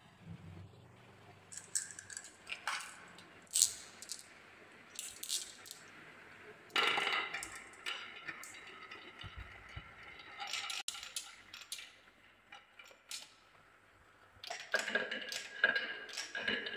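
Marbles clicking and rolling along a wooden marble run's wavy tracks and spiral, in scattered clacks and clinks. A longer rolling clatter comes about seven seconds in, and a dense run of clacking near the end as several marbles go through together.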